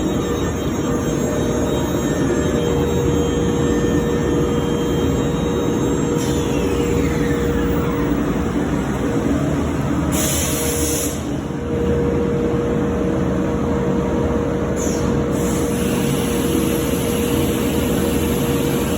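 CNC router running on a wooden door jamb, a steady machine din with a high spindle whine. About a third of the way in, a falling tone sweeps down and the whine drops away. A short sharp hiss of air follows, then the whine comes back.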